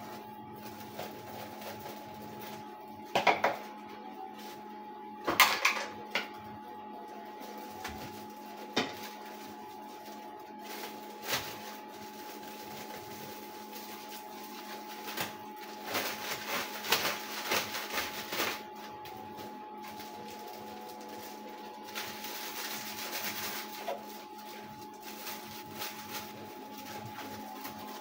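Cotton candy machine running with a steady motor hum, with a few sharp knocks and clatters over it, the busiest stretch a little past halfway.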